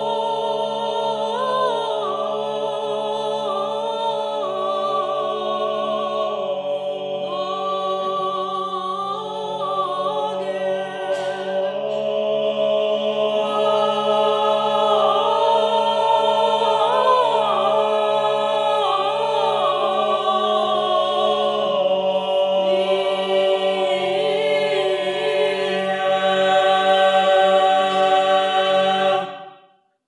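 A mixed choir of men's and women's voices singing Orthodox chant a cappella: a Christmas hymn in Syrian chant. A steady low note is held under a moving, ornamented melody. The singing grows louder about twelve seconds in and stops abruptly just before the end.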